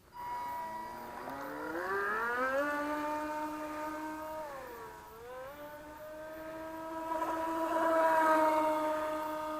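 Electric motor of an FSR ECO class RC boat whining as it runs. It rises in pitch over the first couple of seconds, dips briefly about halfway through, then climbs back and holds a steady pitch, loudest near the end.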